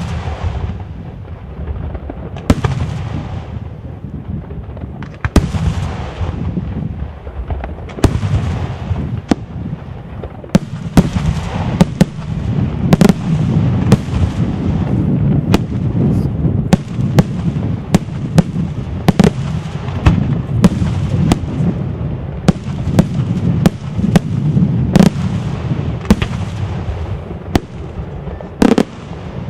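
Daytime fireworks display: aerial shells bursting overhead in a barrage of sharp bangs over a continuous low rumble. The bangs are spaced out at first and come thick and fast from about ten seconds in.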